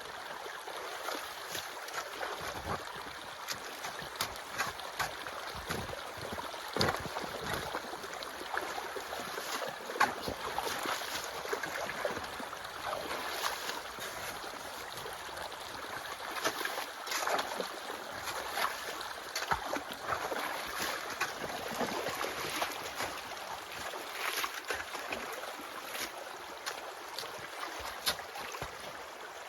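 Snowmelt and rainwater rushing along a ditch channel, with irregular knocks and scrapes as chunks of ice are broken up and cleared from it.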